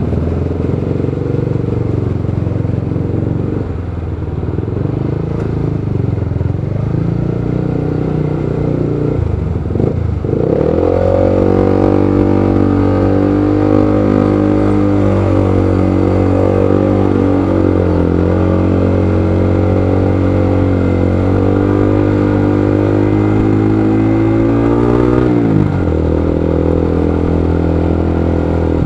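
The rider's own motorcycle engine running in stop-and-go traffic: uneven at low speed at first, then revving up about ten seconds in and holding a steady pitch, dropping back about twenty-five seconds in.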